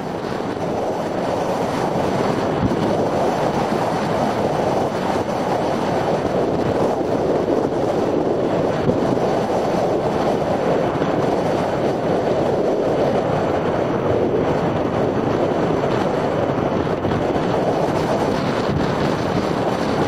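Blizzard wind blowing across the microphone: a steady rushing noise that builds over the first couple of seconds and then holds level.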